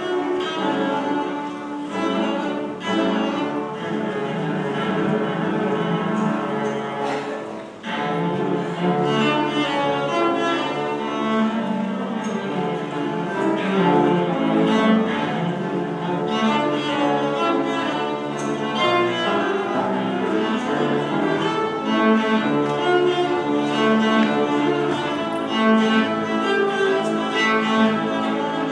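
Cello played with the bow: a melody of sustained notes, with a short break in the sound about eight seconds in before the playing resumes.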